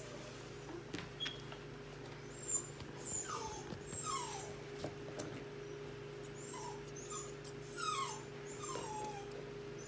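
English Cocker Spaniel puppy whining: a string of short, high whines, each sliding down in pitch, coming thick and fast through the second half, over a steady low hum.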